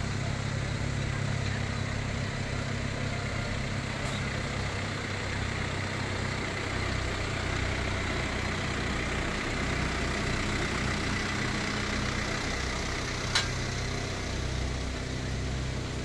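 Farm tractor's diesel engine running steadily at low revs as it pulls a loaded wagon slowly past. One sharp click sounds near the end.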